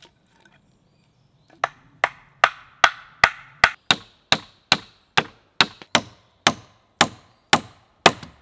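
A tool striking wood: a fast, even run of about seventeen sharp blows, roughly two and a half a second, starting about a second and a half in.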